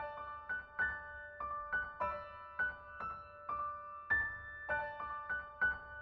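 Gentle background piano music: single notes struck at about two a second, each ringing on and fading.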